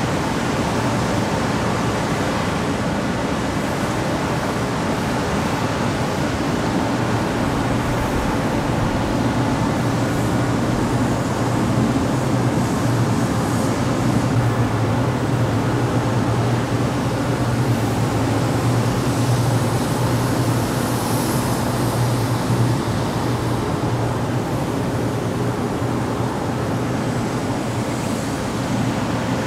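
Industrial exhaust fan running steadily: an even rush of air with a low hum underneath.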